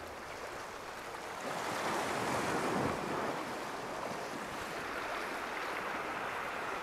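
Sea waves washing against shore rocks, one wash swelling louder about two to three seconds in.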